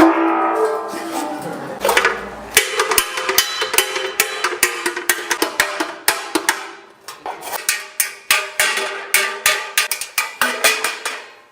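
Quick, irregular runs of hammer blows on a bronze gong blank, each strike giving a short metallic ring.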